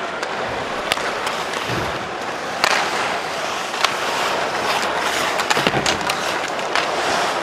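Ice hockey play sounds: skates scraping on the ice and sharp clacks of sticks and puck over steady arena crowd noise. A cluster of clacks and knocks comes about five and a half seconds in.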